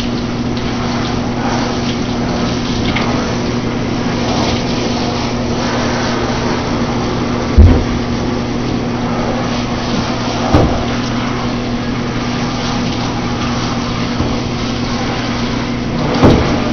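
Steady rush of running water during a dog's bath, over a low steady hum. Two brief low thumps come about halfway through, a few seconds apart.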